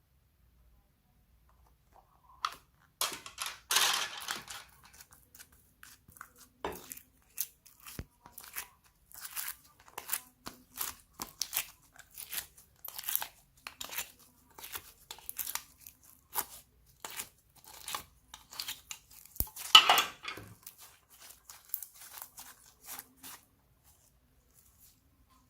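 Slime being squished and stretched by hand: a run of small crackles and pops, with two louder rushes of crackling, one a few seconds in and one near the end.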